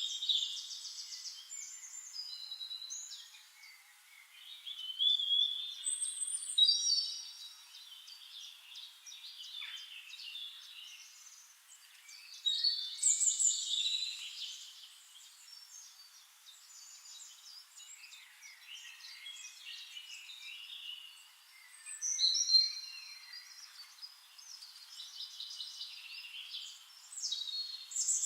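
Songbird singing in bursts of high, varied chirps and trills, each phrase a second or two long, separated by pauses of several seconds.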